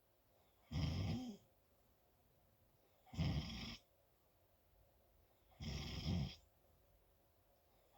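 Loud snoring: three short snores about two and a half seconds apart, each lasting under a second, with quiet breathing between them.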